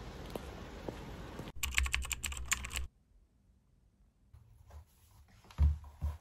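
Steady background noise with soft regular ticks, cut off by a burst of fast typing on a laptop keyboard: a dense run of clicks lasting about a second and a half. After a quiet stretch come two loud, dull thumps near the end.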